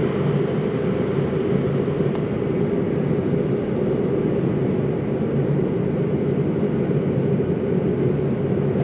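A vehicle's engine running, heard from inside the cab as a steady rumble with a constant low hum.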